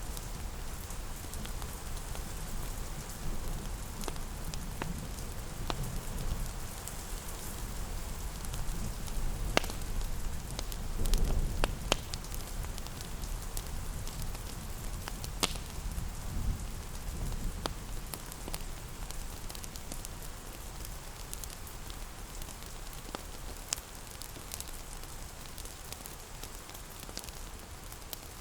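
Steady rain with a wood fire crackling: an even hiss with scattered sharp pops, over a low rumble that fades toward the end.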